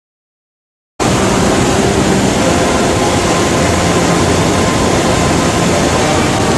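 Loud, steady rushing noise of floodwater in a flash-flood torrent, cutting in suddenly about a second in.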